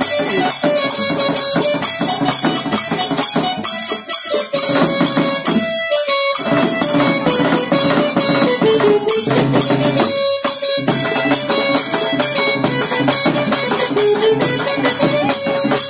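Live Marathi folk music: a steady melody line over fast jingling percussion, with short breaks about six and ten seconds in.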